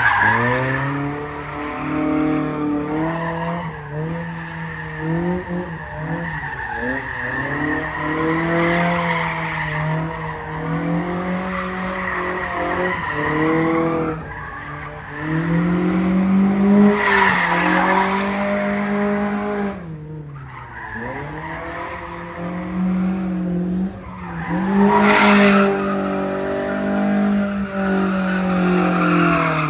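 A car engine revving hard and easing off over and over, its pitch swinging up and down, with tyres squealing as the car is slid around a gymkhana course. The squeal swells loudest twice in the second half.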